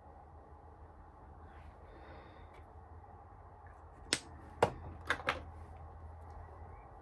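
Four sharp clicks and taps in quick succession a little past the middle, as small makeup items are handled and set down on a table, over a low steady hum.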